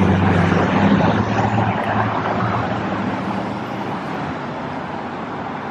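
City street traffic: a motor vehicle's engine hums steadily over road noise, fading gradually over the first few seconds.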